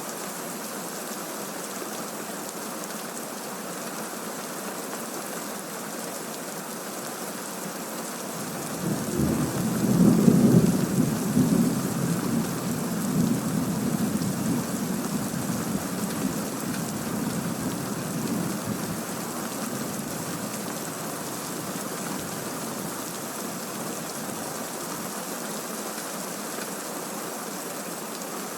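Steady rain falling, with a roll of thunder that starts about a third of the way in, is loudest within the next two seconds, then rumbles on and dies away over about ten seconds.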